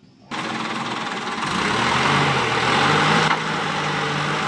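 Dump truck engine running while its raised bed tips out a load of sand, with a steady rushing noise over the low engine hum. The engine note rises a little about two seconds in.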